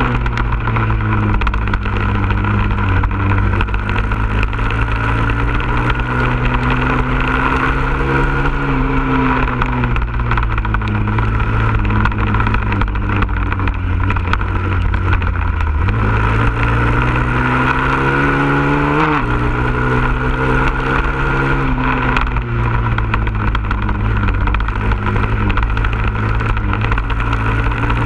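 Honda CRF100F's single-cylinder four-stroke engine under way, its pitch climbing and falling as the rider works the throttle through the laps, with a long climb that drops off suddenly about two-thirds of the way through.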